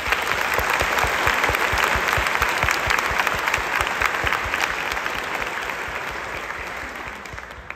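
Audience applauding, loud at first and gradually dying away near the end.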